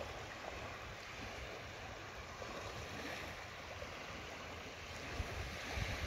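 Small seawater waves lapping on a shallow beach, a steady wash, with wind gusting on the microphone near the end.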